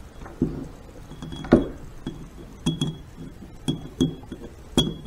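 Snap-ring pliers working the last snap ring on a steel Harley five-speed transmission countershaft: a string of irregular light metal clicks and clinks, several with a brief high ring.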